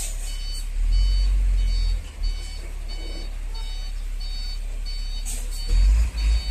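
FAW J6P-350 dump truck reversing: its reversing alarm beeps evenly, about one and a half times a second, over the low rumble of the diesel engine. The engine swells louder about a second in and again near the end as it takes more throttle.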